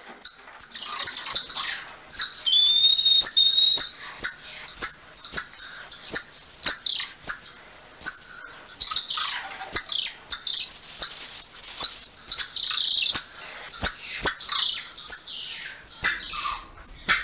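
Golden lion tamarins calling: rapid high-pitched chirps and trills, with two long, level whistles, one about two seconds in and another about ten seconds in, among many sharp clicks.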